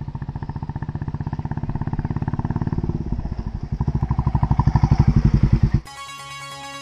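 Royal Enfield Bullet motorcycle's single-cylinder engine running with a rapid, even pulse, growing louder as it approaches and passes. It cuts off abruptly near the end, and music with plucked keyboard notes begins.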